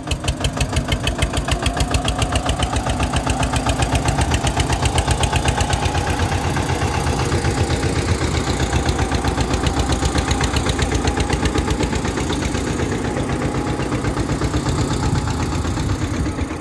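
An engine running steadily with a fast, even chugging beat.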